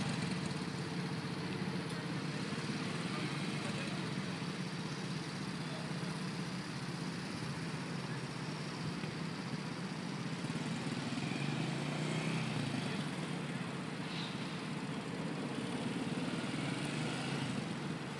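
A MOTAX A-54 teen quad bike's 125 cc petrol engine running steadily at low revs as it idles and creeps along at walking pace.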